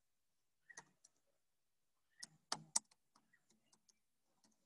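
Faint, irregular keystrokes on a computer keyboard, with a few louder key taps about two and a half seconds in.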